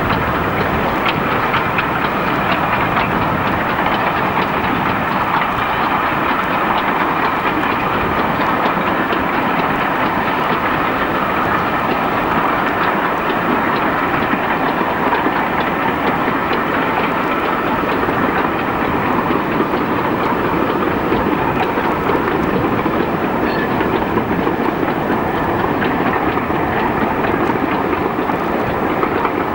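GWR Hall class steam locomotive 4920 Dumbleton Hall hauling a passenger train along the line: a steady running rumble with a clickety-clack of wheels over rail joints.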